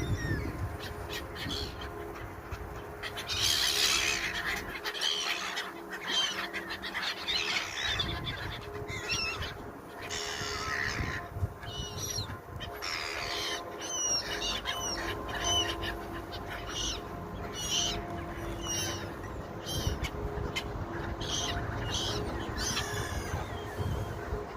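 Flock of pigeons cooing, with many short, high bird chirps mixed in.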